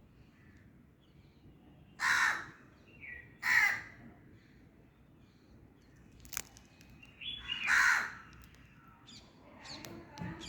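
A crow cawing: three loud, harsh caws spread across several seconds, with fainter calls near the end and a single sharp click shortly before the third caw.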